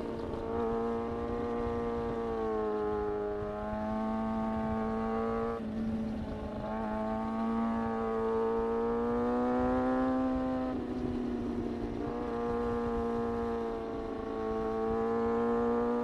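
Kawasaki ZX-6R inline-four engine running at steady mid revs while riding, its pitch rising and falling gently with the throttle. The note breaks briefly twice, about five and a half and eleven seconds in, over a low rush of wind on the microphone.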